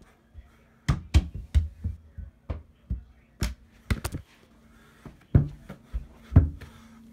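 About a dozen irregular thumps and knocks, loosely spaced, over a faint steady hum.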